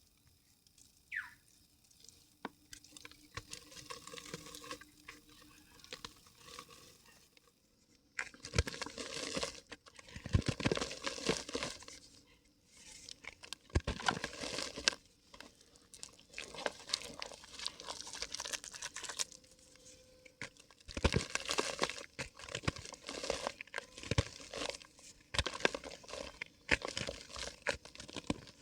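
Dry yellow mud crumbling and crackling as it soaks up water in a clay pot: faint scattered crackles at first, then about eight seconds in dense spells of crunching, crackling crumble with short lulls between them.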